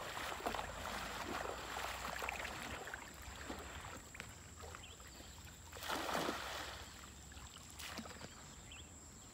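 Water sloshing and splashing around legs wading in a shallow, muddy river, with one louder splash about six seconds in.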